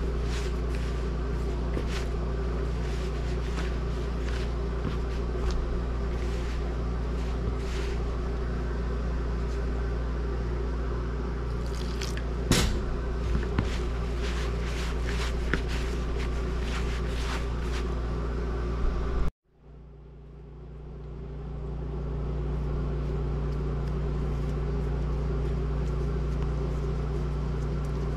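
A steady machine hum with a low drone, over soft rubbing and scattered light knocks of hands mixing flour-and-water dumpling dough in a plastic bowl. About two-thirds through, the sound cuts out abruptly and the hum fades back in over a couple of seconds.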